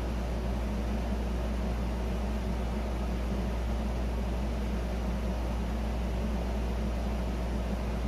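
Steady low hum with an even hiss over it, a constant background machine noise that does not change.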